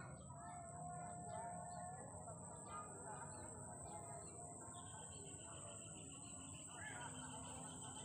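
Faint open-country ambience: small birds chirping now and then over a steady high-pitched hiss. A thin, steady whistling tone joins about five seconds in.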